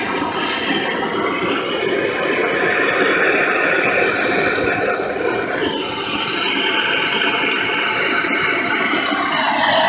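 Handheld gas torch burning with a steady rushing hiss, played on a crucible to keep the silver molten while it is poured. The tone of the hiss changes about six seconds in.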